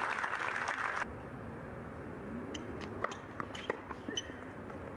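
Spectators applauding, cut off abruptly about a second in. Then quiet outdoor court ambience with scattered short, sharp taps and clicks.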